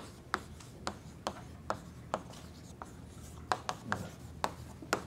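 Chalk writing on a chalkboard: an irregular string of sharp taps and short scratches as letters are written, about two or three a second.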